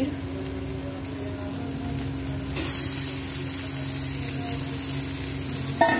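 Onion-tomato tadka sizzling in a hot pan as crumbled paneer is tipped in from a bowl. The sizzle turns louder and brighter about two and a half seconds in. A steady low hum runs underneath.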